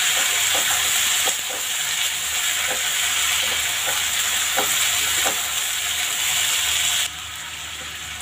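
Boiled black chickpeas (kala chana) with fried onions sizzling in hot oil in a kadhai while a spatula stirs them, with soft scrapes against the pan every second or so. The sizzle drops suddenly quieter about seven seconds in.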